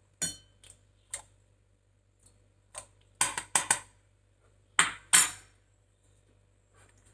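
Small hard objects being handled: a light metallic clink just after the start, then scattered short clicks and knocks, the loudest bunched between about three and five seconds in.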